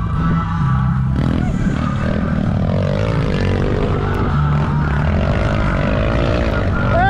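Off-road motorcycle engine revving as the bike climbs a steep muddy hill. The pitch rises and falls with the throttle, then sweeps sharply higher near the end and holds there.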